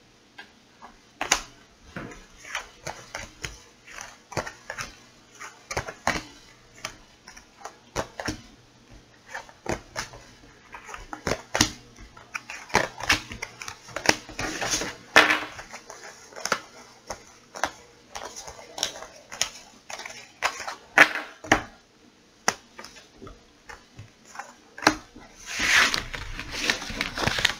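Tarot cards being gathered, slid and shuffled on a tabletop: irregular light clicks and taps, several a second, with denser stretches of riffling about halfway through and again near the end.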